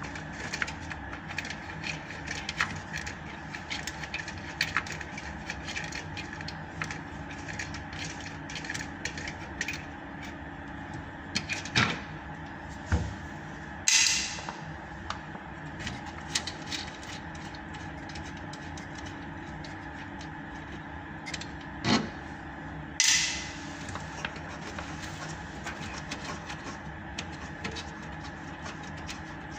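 Scattered small clicks and knocks over a steady low hum. There are a few louder knocks around the middle and again later, and two short hissing bursts.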